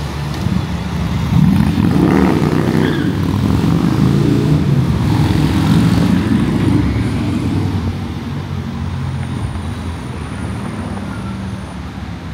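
A heavy road vehicle's engine rumbling as it passes in street traffic, swelling over the first couple of seconds and easing off after about seven seconds.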